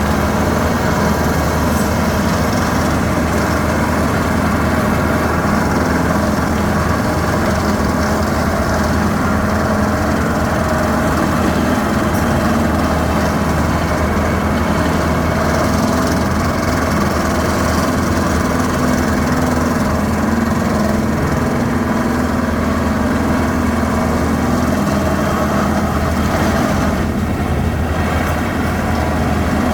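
Engine of heavy rock-splitting or core-drilling equipment running at a steady speed, a constant loud drone with no impacts.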